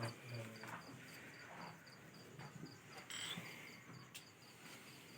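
Cricket chirping steadily at about three chirps a second, high-pitched and faint, with a short noise about three seconds in and a single click about a second later.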